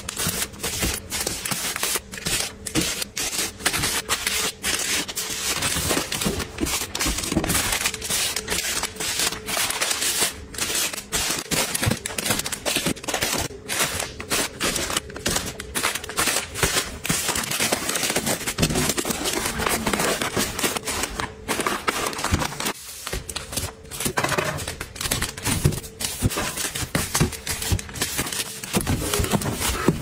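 Plastic-wrapped tissue and wet-wipe packs crinkling and rustling as they are handled and set down one after another in stacks on a shelf, a dense, unbroken run of rustles and soft taps.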